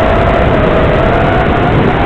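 Racing quadcopter's electric motors whining at a steady pitch, heard from on board under heavy wind and rushing noise.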